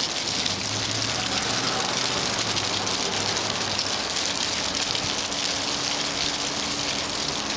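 Steady, even rushing hiss with a faint low hum under it.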